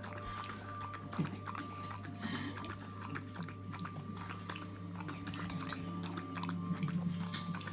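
Yorkshire terrier lapping and eating from a ceramic bowl: a quick, irregular run of wet licks and small clicks.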